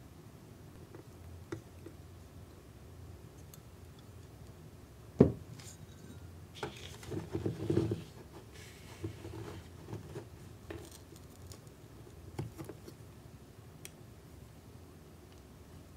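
Hollow plastic toy kitchen pieces from a Moco Moco Kitchen candy kit handled and set down on a table: one sharp knock about five seconds in, then a short run of clattering, and a few light taps after.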